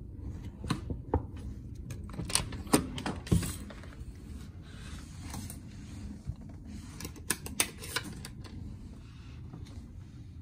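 Scattered sharp clicks and knocks of a plastic hotel keycard and door hardware being handled, the loudest a couple of seconds in, with a keycard pushed into the room's power slot in the second half, over a low steady hum.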